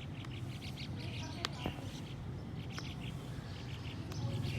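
Small birds chirping in short, rapidly repeated calls over a steady low hum, with two sharp clicks about a second and a half in.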